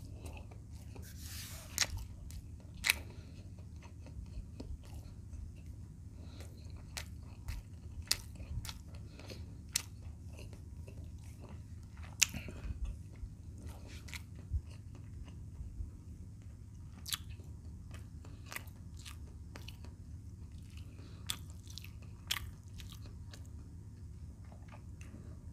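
A person chewing a mouthful of fried chicken close to the microphone, with irregular sharp mouth clicks and smacks scattered through, over a steady low hum.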